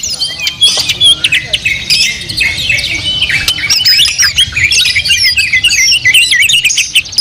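Several white-rumped shamas (murai batu) singing at once: a dense tangle of overlapping loud, rapid whistled phrases and sharp notes.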